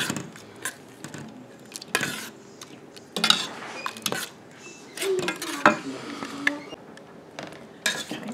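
Metal spoon stirring thick tomato jam in a stainless steel pot, with irregular clinks and scrapes of the spoon against the pot's sides and bottom.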